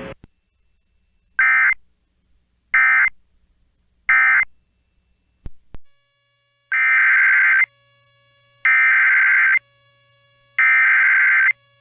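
NOAA Weather Radio EAS (SAME) data bursts. First come three short bursts, the end-of-message code closing the previous alert. After a click about five and a half seconds in come three longer bursts, each close to a second long, the header that opens the next alert. Each burst is a rapid two-tone electronic warble, and a faint low hum sits under the last three.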